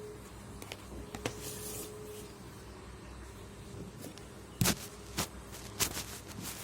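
A few sharp clicks and taps from keypad mobile phones being handled, the loudest two about four and a half and six seconds in, over a faint steady hum.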